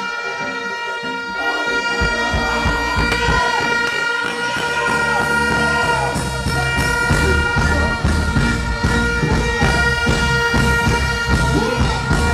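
Live reggae band music played loud through a concert sound system, with a high horn-like note held throughout and a heavy bass beat coming in about two seconds in.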